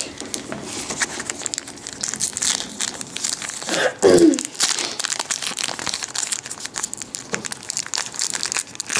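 Foil wrapper of a Yu-Gi-Oh! Metal Raiders booster pack being torn open and crinkled by hand, a dense rapid crackling, with a brief voice about four seconds in.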